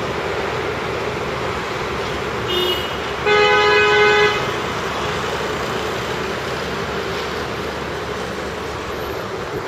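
Steady road traffic noise, with a vehicle horn sounding twice: a short toot about two and a half seconds in, then a louder horn held for about a second.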